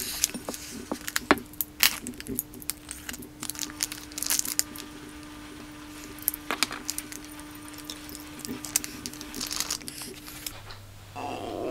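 Clear plastic fish-store bag holding a coral being handled, twisted and opened over a bowl: repeated crinkling and sharp crackles of the plastic.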